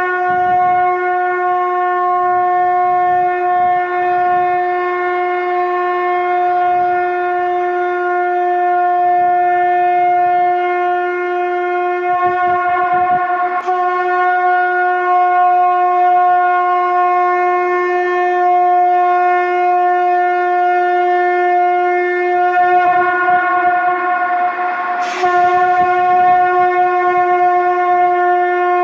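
Conch shell (shankh) blown in long, steady, sustained blasts on one pitch, with a fresh blast starting about halfway through and again near the end. This is shankhnaad, ritual conch blowing.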